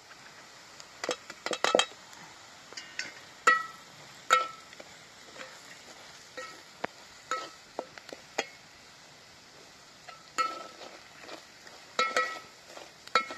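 A metal spatula stirring spices into onion and garlic frying in oil in a metal cooking pot on a wood fire. It knocks and scrapes against the pot in irregular clinks, some in quick clusters, each ringing briefly, over a faint sizzle.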